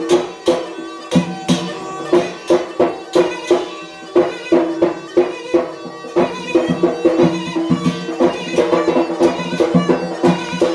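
Yemeni mizmar, a double-reed pipe, playing a droning, reedy dance tune, with sharp strikes on a metal tasa drum two to three times a second in an uneven beat.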